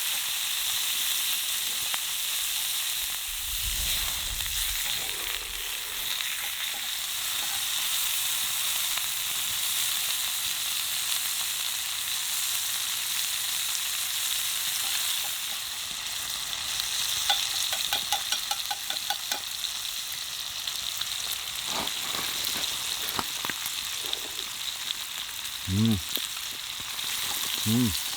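Food frying in a cast-iron pan, a steady sizzle throughout. About two-thirds of the way in comes a quick run of light clicks, then a few single clicks, and near the end two short hum-like voice sounds.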